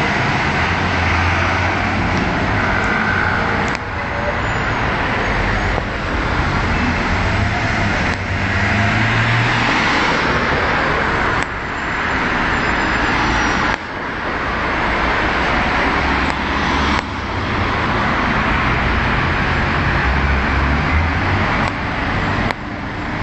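Road traffic on a city street: vehicles driving, a steady rumble and hiss with several sudden dips in level.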